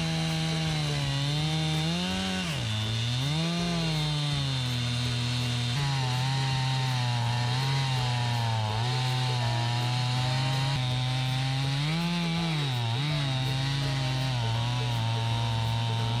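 Stihl MS 291 two-stroke chainsaw running at high speed in an Alaskan chainsaw mill, ripping lengthwise through a log. The engine note holds mostly steady but sags and recovers several times, notably about two seconds in and again near the three-quarter mark, as the load in the cut changes.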